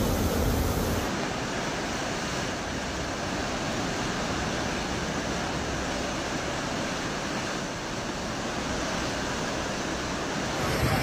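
Muddy floodwater rushing down a street: a steady, unbroken rush of fast-flowing water, whose tone shifts about a second in and again near the end.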